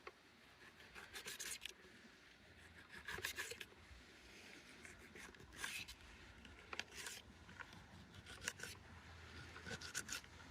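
Faint cooking-utensil scrapes and rubs in cookware during camp meal preparation: a series of short strokes at irregular intervals over a faint low hum.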